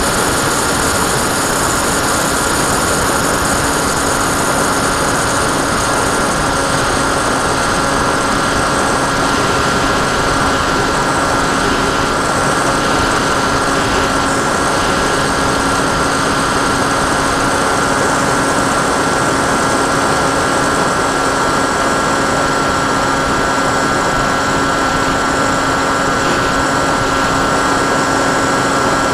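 Sky Cruiser 2400 RC model plane's motor and propeller running at a steady pitch through the flight, recorded from the onboard camera, over a steady rush of air noise.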